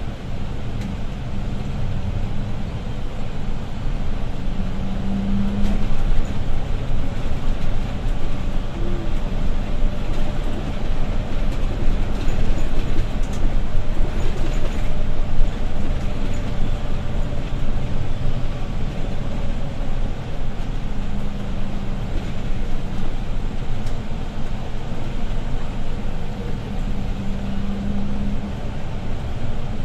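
Interior ride noise of a Setra S415 LE business diesel bus driving on a country road: steady engine and road rumble, with the engine hum swelling a few times as it pulls.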